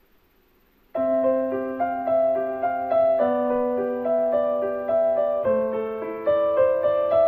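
Background piano music that starts abruptly about a second in, after near silence: a melody of single notes over held lower notes.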